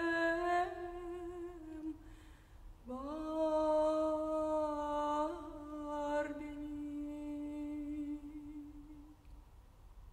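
A woman's trained classical singing voice holding the closing notes of a song: one held note, a short pause for breath, then a long sustained note that fades out about nine seconds in.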